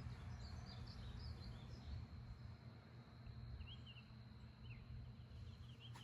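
Faint birds chirping in short, quick notes, several in a row, over a low, steady outdoor rumble.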